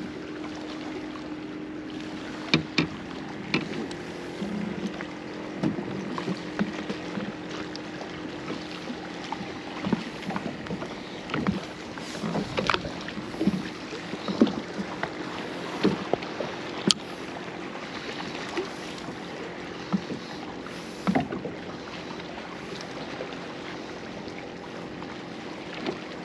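Water lapping against the hull of a Pelican Catch PWR 100 fishing kayak, with many small scattered knocks and taps, over a steady low hum.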